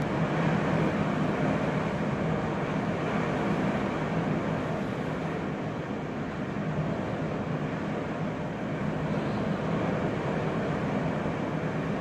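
Blizzard wind blowing hard in a steady rushing roar, swelling and easing a little with the gusts, with wind buffeting the microphone.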